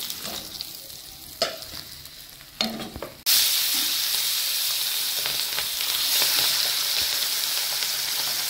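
Pabda fish frying in hot oil in a kadai: a low sizzle with a couple of metal spatula knocks against the pan. About three seconds in, the sizzle jumps to a loud, steady hiss as fresh fish go into the oil.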